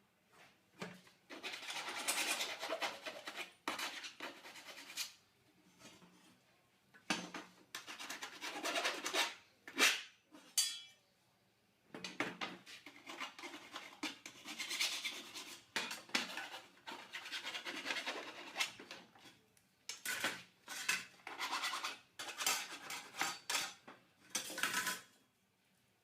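Cut edges of steel cable tray being dressed by hand to remove the sharp edges: repeated scraping strokes of metal on metal in bursts of a second or two, with short pauses and a few sharp clicks between.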